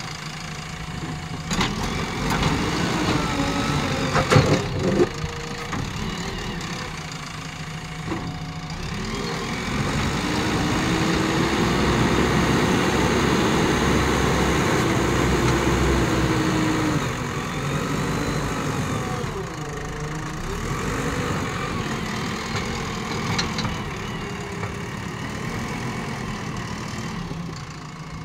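JCB 3DX backhoe loader's diesel engine running as its front loader bucket works the dirt, revving up for several seconds in the middle under load and then settling back. A couple of sharp knocks come in the first few seconds.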